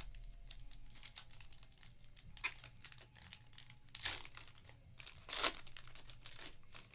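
Foil wrapper of a 2021 Panini Elite Extra Edition Baseball pack crinkling and being torn open by hand. It makes a run of small crackles, with two louder rips about four seconds and five and a half seconds in.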